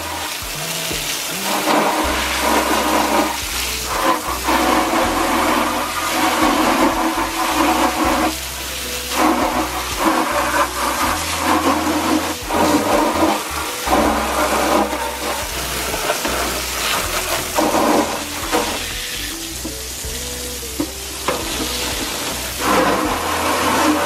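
Water spraying hard, washing down dirty plastic seat bases, over background music with a bass line that moves in steps.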